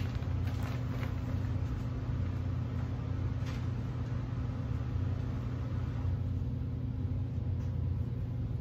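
Steady low hum of an unseen machine or appliance, with brief rustling of plastic packaging and fabric about half a second to a second in and again around three and a half seconds in.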